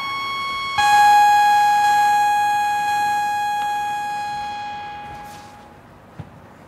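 Electronic synthesizer tones through speakers: a held bright tone gives way, under a second in, to a lower sustained note with many overtones that slowly fades out over about five seconds. A faint click near the end.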